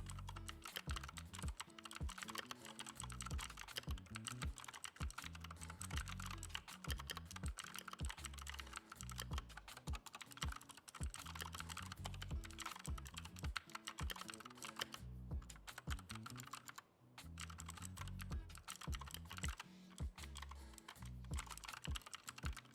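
Fast typing on a Keychron K2 Version 2 mechanical keyboard with clicky Gateron Blue switches: a dense run of sharp key clicks, with a short lull about two-thirds of the way in.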